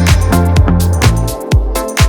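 Background electronic dance music with a steady four-on-the-floor kick drum, about two beats a second, over sustained synth notes.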